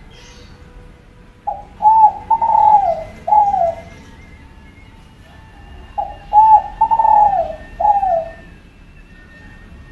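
Spotted dove (tekukur, Kelantan type) cooing: two phrases of about four notes each, a few seconds apart, the later notes of each phrase falling in pitch.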